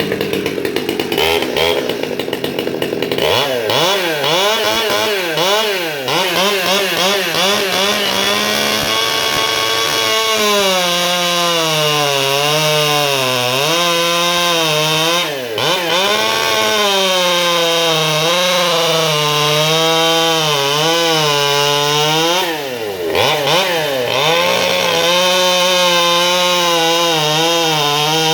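Small Stihl two-stroke chainsaw running at full throttle and cutting through a kiln-dried Douglas fir log, its engine pitch wavering and sagging under load. The pitch drops off and picks up again twice, about halfway and about three quarters of the way in.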